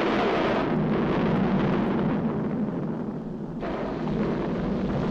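Volcanic eruption sound effect in a 1940s animated cartoon: a continuous deep rumbling noise, shifting in texture about three and a half seconds in.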